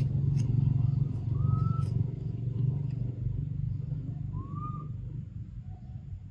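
A low, steady engine drone that slowly fades. Two short squeaks that rise and fall in pitch sound over it, about a second and a half in and again about four and a half seconds in.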